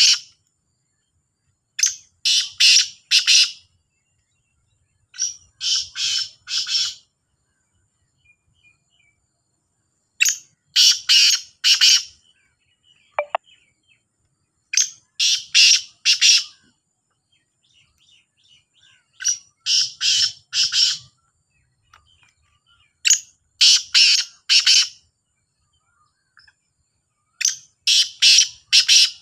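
Caged black francolins calling. Each call is a quick run of about four notes, repeated roughly every four seconds, seven times in all.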